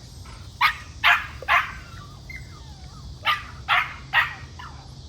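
American pit bull terrier barking: six sharp barks in two runs of three, about half a second apart.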